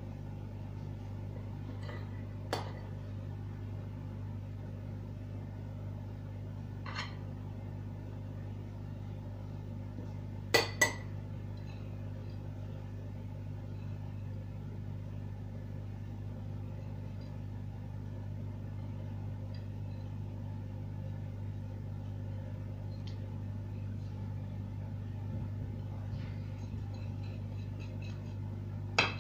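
A steady low hum, with a few light clinks of a ceramic plate against a glass baking dish as grated cheese is sprinkled; the loudest is a quick double clink about ten and a half seconds in, with another pair near the end.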